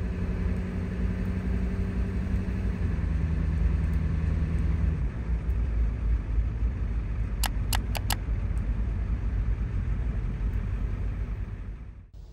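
Inside a moving van's cabin: steady low engine rumble and road noise from the 1991 Ford E350 and its 7.3 L diesel V8 on the road. Four quick clicks come in a row about halfway through.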